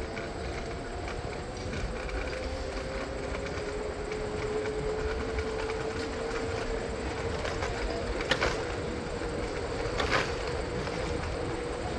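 Riding noise from a moving bicycle: wind on the microphone and tyres rolling on asphalt, with a thin steady whine that rises slightly in pitch. There are two short sharp clicks, about eight and ten seconds in.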